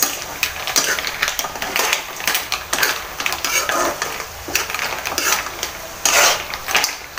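A metal spoon stirring mussels in an aluminium wok: irregular clinks and scrapes of spoon on pan and shells clattering against each other, over a light sizzle of melted butter. A louder clatter comes about six seconds in.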